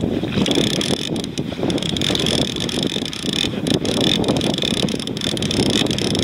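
Fishing reel being cranked to wind in a freshly hooked fish, its gearing giving a busy clicking whir that pauses briefly about three and a half seconds in, over wind buffeting the microphone.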